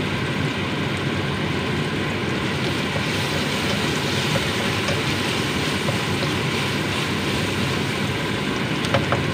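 Sliced onions sizzling steadily in hot oil in a nonstick wok as they are fried toward golden brown, stirred with a spatula that taps the pan a few times near the end.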